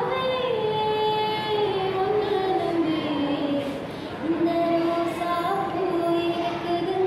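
A girl singing solo: a single voice holding long notes and gliding slowly up and down between them.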